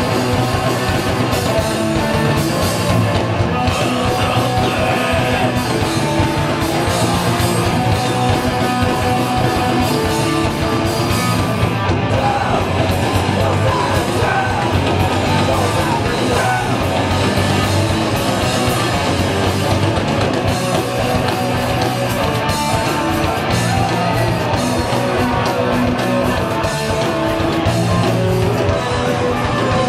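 Live rock band playing loud and without a break: electric guitars, bass and drums in a hard punk-metal style.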